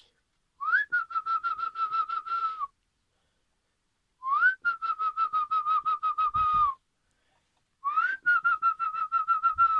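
Person whistling a pigeon call to bring the birds down into the loft: three fluttering calls of about two seconds each, each starting with a quick upward slide and then holding a warbling note.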